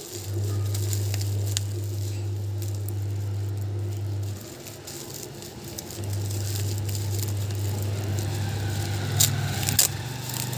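Clear plastic wrapping crinkling and crackling as hands pull it open, with two sharper crackles near the end. Under it runs a steady low hum that drops out about four seconds in and comes back about two seconds later.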